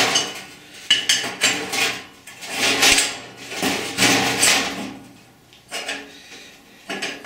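Square metal tube frames being handled and fitted together on a steel mesh welding table: irregular metal-on-metal clanks, knocks and scrapes.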